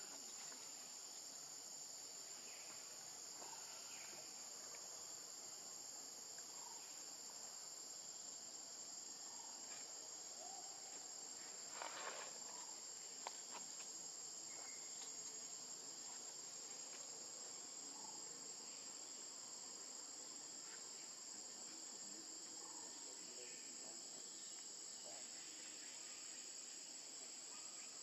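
Steady high-pitched buzz of an insect chorus, unbroken throughout, with a brief louder sound about twelve seconds in and a single click just after.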